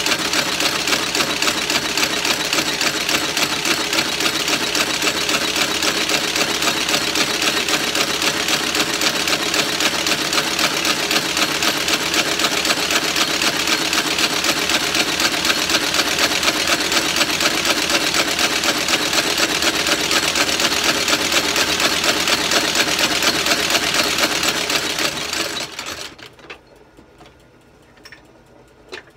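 Shoe-repair stitching machine sewing the sole of a shoe in a fast, steady, even rhythm. It slows and stops about 26 seconds in, followed by a few light clicks.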